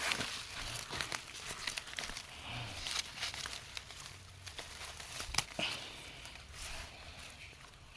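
Irregular rustling, crackling and tearing of leafy plants as rabbit fodder is gathered.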